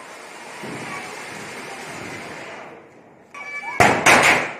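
Ground fireworks fountain (anar, a flower pot) hissing steadily as it throws up sparks, dying away about three seconds in. Near the end, loud sharp firecracker bangs go off in quick succession.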